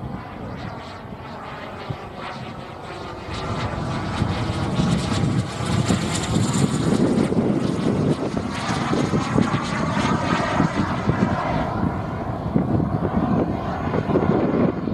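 Model jet turbine (JetMunt 100) in a YT Pantera RC jet flying overhead: a steady jet rush with a high whine. It grows louder about four seconds in and the tone sweeps up and down as the jet passes.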